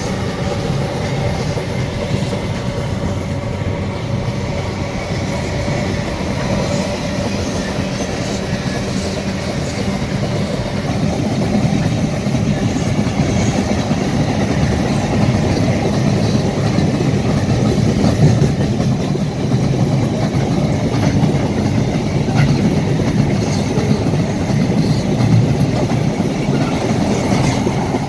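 Open-top freight wagons rolling past on their steel wheels, a steady rolling rail noise that grows louder about twelve seconds in.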